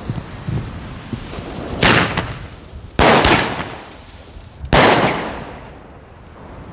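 Broekhoff Thunderking Trickshot firecrackers going off after their fuses fizz: three loud sharp bangs, the first nearly two seconds in, then about a second and a second and a half apart. The last two ring out for about a second each. Each cracker shoots a red mine and ends in a titanium salute bang.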